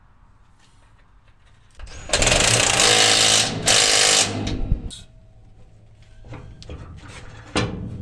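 A handheld power tool, hammering rapidly at a bolt on the grain dryer's sprocket drive, runs in a loud burst of about a second and a half, then a short second burst. After it come a few light metal clicks and a knock near the end.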